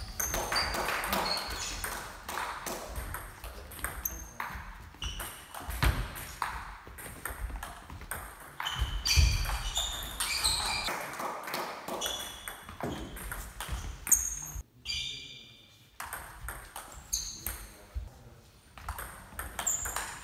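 Table tennis ball clicking off the bats and bouncing on the table in quick rallies, many sharp pings in a row, with a brief quiet gap about three-quarters of the way through.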